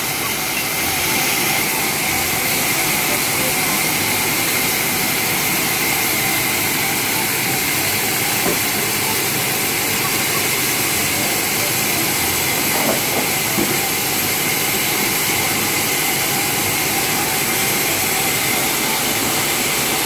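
Large sawmill band saw running steadily as a teak log on a hand-pushed carriage is fed through the blade: a constant rushing noise with a steady high whine.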